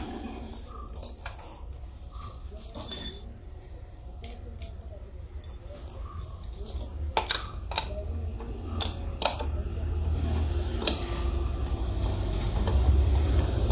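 Metal tools clinking and clicking while a socket spanner is fitted onto a scooter's rear axle nut: scattered sharp clinks, one loud one about three seconds in and several more in the second half, over a low steady hum.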